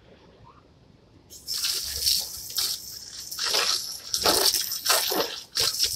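Water from a garden hose spraying onto plastic patio chairs, starting about a second in and coming in several strong surges as the spray is moved over the chairs.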